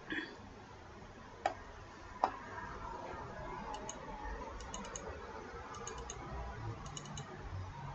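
Computer mouse clicking: two sharp clicks about a second and a half and two seconds in, then faint quick ticks in small clusters, over a low background hiss.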